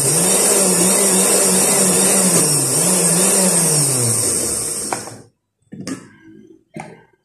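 Electric blender with a glass jar running on thick basil pesto, its motor pitch rising and falling every second or so as the paste loads and frees the blades. It switches off about five seconds in, and a few short knocks follow.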